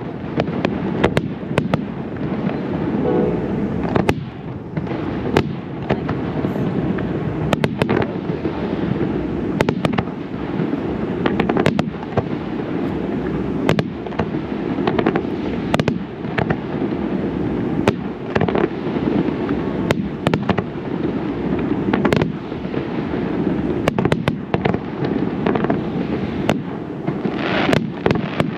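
Aerial fireworks display going off: a continuous heavy rumble of shell bursts with frequent sharp bangs.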